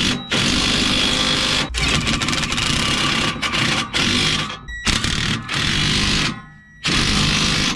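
Impact wrench hammering a shock absorber mounting nut tight, in several bursts with short pauses between them.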